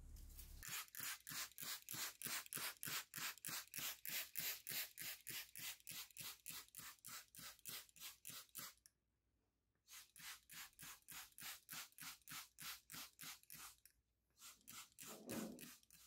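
Food rasped back and forth on a hand grater in quick, even strokes, about four a second, stopping for about a second midway and then going on. A few lower-pitched sounds come in near the end.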